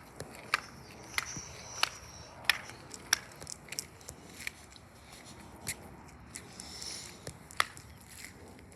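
Irregular sharp ticks and taps, one to three a second, some much louder than others, over a faint steady hiss, with a high buzzing or chirring that comes and goes.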